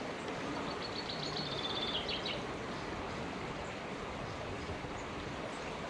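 Steady flow of a small stream's water, with a bird trilling quickly from about half a second to two seconds in.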